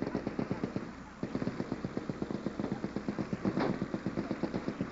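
Machine-gun fire: long bursts of rapid automatic shots at about ten rounds a second, with a short break about a second in.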